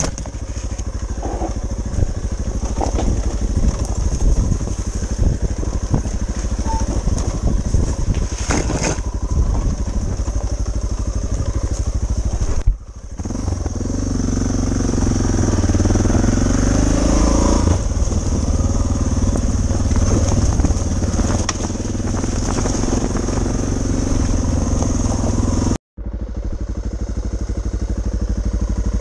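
Suzuki DR650's single-cylinder four-stroke engine running while the bike climbs a rocky trail, with sharp knocks and clatter from rocks and the chassis. After a brief break about 13 s in, the engine pulls steadily along a gravel road, its pitch rising and falling, and after a second short dropout near the end a motorcycle engine runs on.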